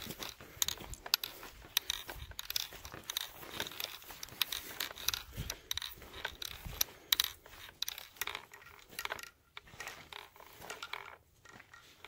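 Footsteps crunching over a muddy gravel track and dry grass: a run of irregular crunches that thins out and gets quieter near the end.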